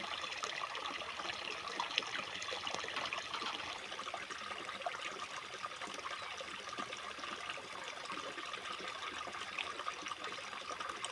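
Water trickling and running steadily, a continuous splashy patter without breaks.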